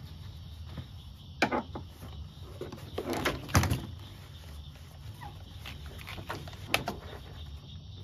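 Scattered knocks and scuffs from gloved hands handling tools and a cloth against a golf cart's plastic body and floor mat. The loudest knocks come about three and a half seconds in, with single knocks about a second and a half in and near the end. The angle grinder is not running.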